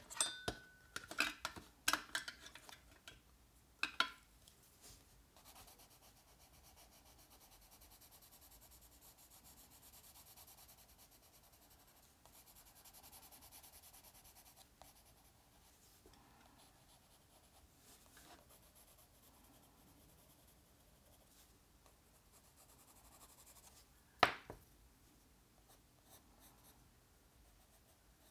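Watercolour pencil leads scratching faintly and steadily across sketchbook paper during colouring. In the first few seconds, sharp clicks of pencils against the metal pencil tin as one is picked out. Near the end, a single sharp click as one pencil is swapped for another.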